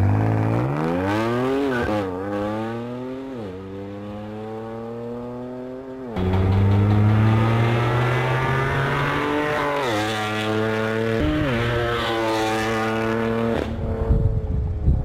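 BMW M2 Competition's twin-turbo straight-six through an Armytrix decat valve exhaust, running loud under hard acceleration, its pitch climbing and then dropping back several times as at upshifts. Sharp crackles near the end.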